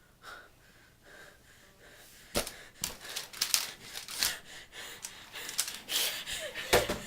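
A person gasping and breathing hard in short, noisy breaths. The breaths start about two seconds in after a quiet opening and grow louder toward the end.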